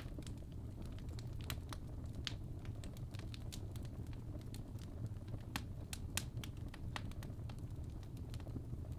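Fireplace fire crackling: irregular sharp pops and snaps, a dozen or so, over a steady low rumble of the flames.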